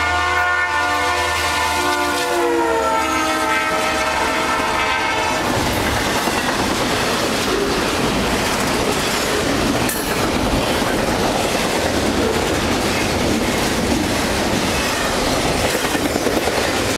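Norfolk Southern diesel freight locomotive's air horn sounding for the grade crossing, its chord dropping in pitch as the locomotive passes, then cutting off about five seconds in. After that, the steady rumble and clatter of double-stack container cars rolling past on the rails.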